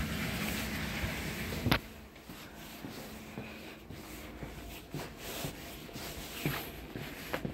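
Interior noise of a passenger train carriage, with soft irregular footsteps as someone walks down the aisle; one sharp knock about two seconds in is the loudest sound.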